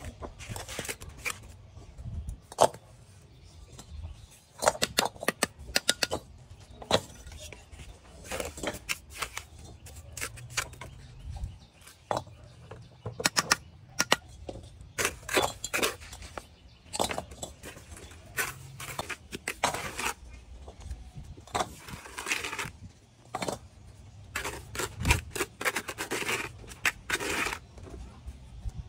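Steel bricklaying trowel scooping and scraping wet cement mortar from a plastic bucket and spreading it over hollow clay bricks. Irregular sharp taps and knocks of the trowel and bricks run between short scraping sounds.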